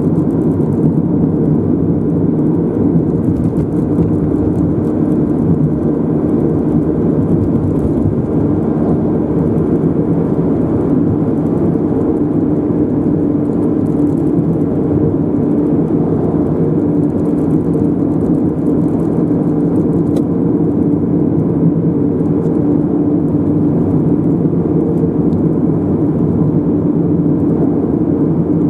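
Car driving at a steady speed: an unbroken low drone of tyre and engine noise.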